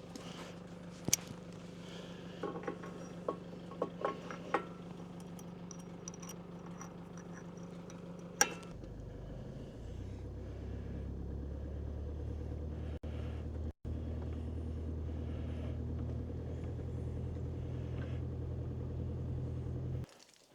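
An engine running steadily, with a few light clinks and knocks over the first eight seconds. About nine seconds in its note drops lower and grows a little louder. It cuts off shortly before the end.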